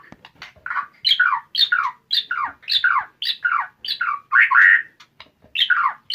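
White-rumped shama (murai batu) in its aggressive 'fighter' mode: a few short clicks, then a run of harsh notes, each sweeping down in pitch, about two a second.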